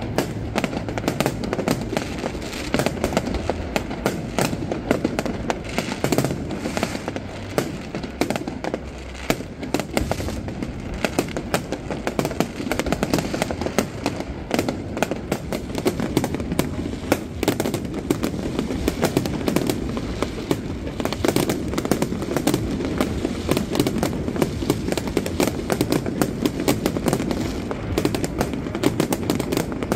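Many fireworks going off at once: a dense, unbroken barrage of bangs and crackling, rockets and firecrackers bursting over one another.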